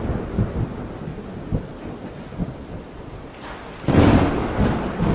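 Wind gusting against the microphone in a snowstorm, an uneven low rumble with buffeting thumps and a strong gust about four seconds in.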